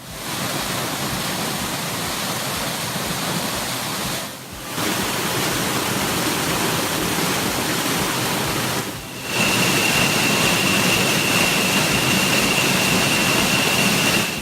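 El Pavon waterfall pouring into its pool: a loud, steady rush of falling water. The rush dips briefly twice, at the joins between shots. A thin, steady high tone comes in over it for the last third.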